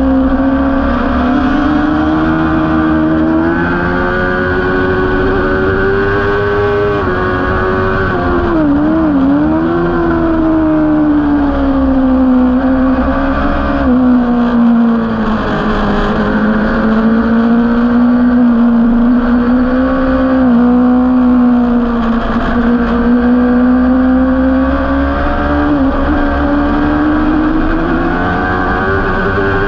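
Onboard sound of a sport bike racing hard: the engine runs high in its rev range, its pitch climbing through each gear and stepping down at the shifts, with a brief wobbling dip about nine seconds in as it brakes for a corner. Wind rushes on the microphone underneath.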